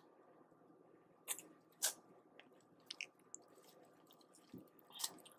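Faint eating sounds of a person working through boiled crawfish: a handful of short, separate mouth clicks, smacks and chewing noises, the loudest just before two seconds in and about five seconds in.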